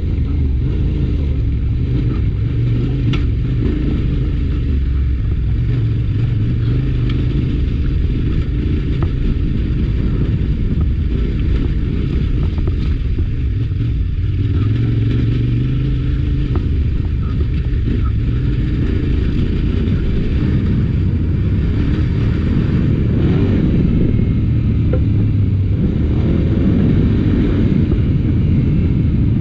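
Adventure trail motorcycle engine running under way off-road, its note rising and falling with the throttle, with a few light ticks.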